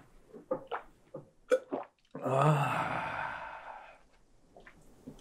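A man swallowing several gulps of beer from a glass, then letting out a long breathy 'ahh' after the drink that starts suddenly about two seconds in and fades away.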